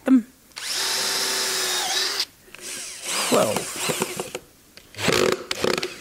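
Cordless drill driving a screw into the corner of a wooden bee box. The motor runs steadily for about a second and a half, then winds down as the screw seats.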